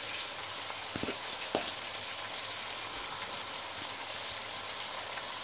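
Raw chicken pieces sizzling in hot oil and onions in the open base of a pressure cooker, a steady frying hiss with a couple of faint ticks about a second in.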